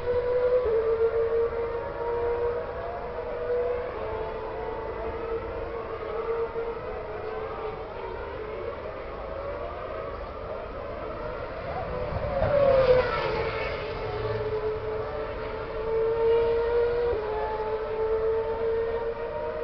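Formula 1 racing car engine running at high, nearly steady revs, its pitch shifting in small steps several times. About twelve seconds in, a louder pass sweeps by with its pitch dropping.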